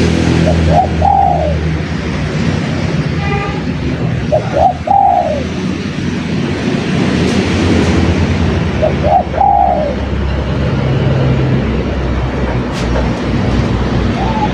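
Spotted dove cooing: three short coo phrases a few seconds apart, over a steady low background rumble and hiss.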